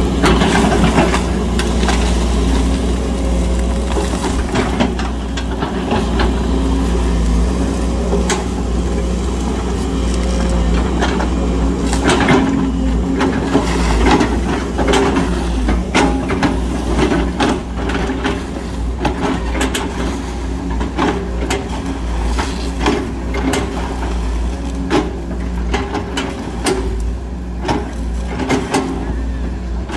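Sumitomo excavator's diesel engine running steadily under load, with many sharp cracks and knocks, like wood being crushed and broken, coming thicker from about halfway through.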